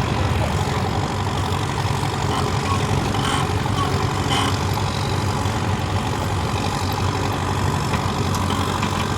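Diesel engine of a Manitou TLB-740S backhoe loader running steadily, with a couple of short knocks about three and four seconds in.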